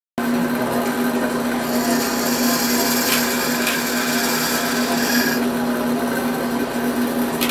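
Bandsaw running with a steady motor hum while its blade cuts through wood. The cutting noise is louder from about two seconds in until about five seconds.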